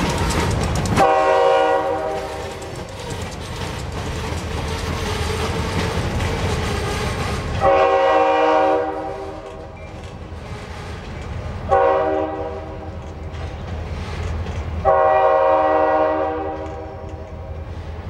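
Freight cars rolling by on jointed rail while the diesel locomotive ahead sounds its horn in the grade-crossing pattern: long, long, short, long.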